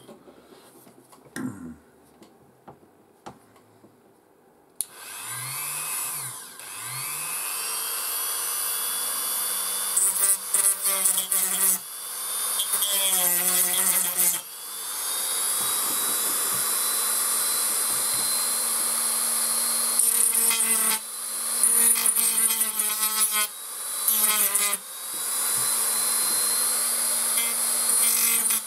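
Small high-speed rotary tool with a grinding bit, spinning up about five seconds in and then running with a steady high whine. It grinds excess glue and plastic off a plastic radio cabinet, and the tone chatters and sags in several spells as the bit bites into the plastic.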